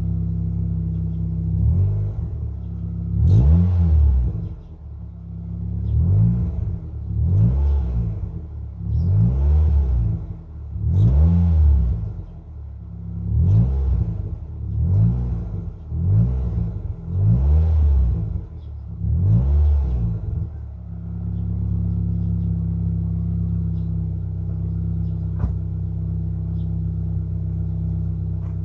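Nissan Primera P11's 1.6-litre 16-valve four-cylinder petrol engine, heard at the exhaust tailpipe: idling, then revved in short blips about ten times, each rising and falling, before settling back to a steady idle for the last few seconds.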